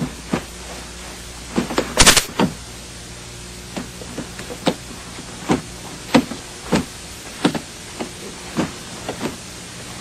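Irregular thumps and knocks of suitcases being bumped, shoved and dropped against each other and the floor, with a louder brief scraping rush about two seconds in.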